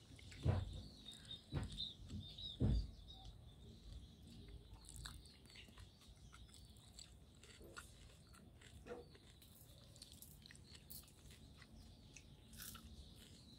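A person chewing and crunching food close to the microphone, eating with their hands. There are three loud crunches in the first three seconds, then softer chewing with small wet mouth clicks.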